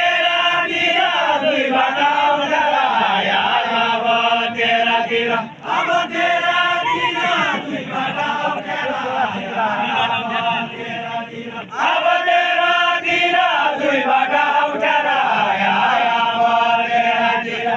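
Voices singing a Deuda folk song in a chanted style. The lines run in long phrases of about six seconds, with brief breaks between them.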